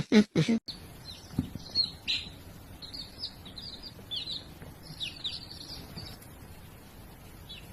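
Small birds chirping: a quick run of short, high chirps, several a second, that goes on for most of the stretch.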